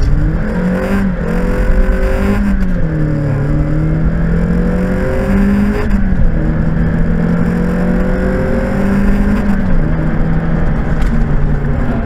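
Mazda MX-5's four-cylinder engine pulling hard under full acceleration through the gears. The engine note climbs, then drops sharply at each upshift, about 2.5, 6 and 10 seconds in.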